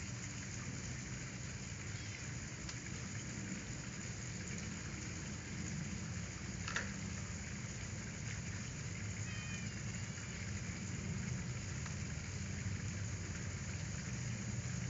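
Steady background noise with a low hum, a single sharp click about seven seconds in, and a faint kitten meow around ten seconds in.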